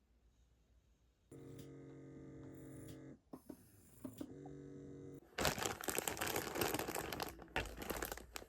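A steady mechanical hum sounds twice, about two seconds and then about one second, followed by loud crinkling and rustling, like plastic or paper being handled.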